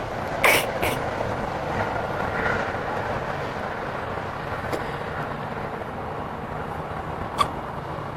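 Steady rushing background noise with a few short clicks and knocks, one about half a second in and another near the end.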